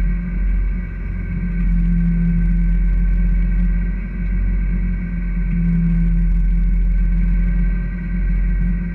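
Fishing boat's engine running with a steady drone on deck, its level swelling and dipping slightly every few seconds.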